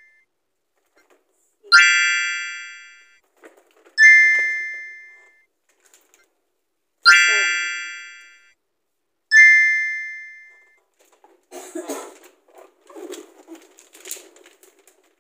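Four bright chime tones, each struck sharply and ringing away over about a second and a half, alternating a simple two-note ding with a fuller, richer chime. From about eleven seconds in, crinkling and rustling of gift wrapping paper being handled.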